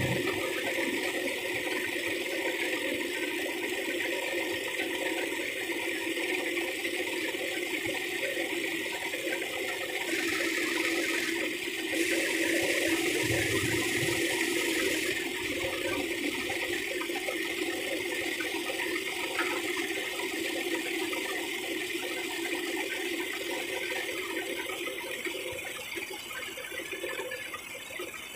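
Heavy diesel truck engine idling: a steady running noise with no clear changes, easing off slightly near the end.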